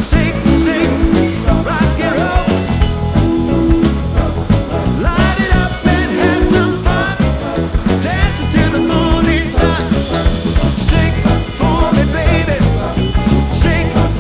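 Background music with a steady beat and a heavy bass line, with a wavering melody over it.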